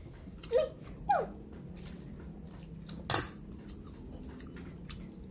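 A steady high-pitched chirring of crickets or similar insects. Two short falling voice-like calls come in the first second or so, and a single sharp crack sounds about three seconds in.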